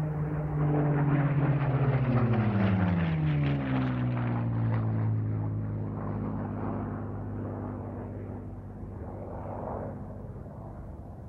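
An engine passing by: its pitch drops as it goes past, loudest in the first few seconds, then fading away.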